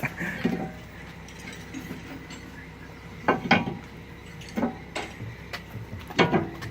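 Scattered metallic clinks and knocks of brake parts and hand tools being handled during a brake rotor swap, a few separate hits with quiet between them.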